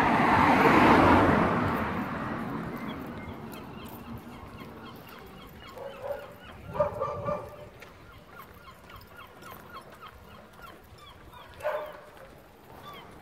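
A rushing noise swells and fades over the first couple of seconds. Then birds call: a few short honking calls about halfway through and one more near the end, with faint high chirps between them.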